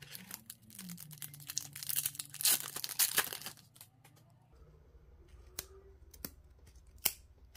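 A foil trading card pack is torn open and its wrapper crinkles for about three and a half seconds. A few light clicks follow as the stack of cards is handled.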